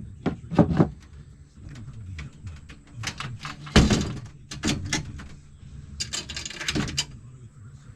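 A series of knocks and thuds as things are handled. The loudest thud comes about four seconds in, and a short rattling clatter follows near the end.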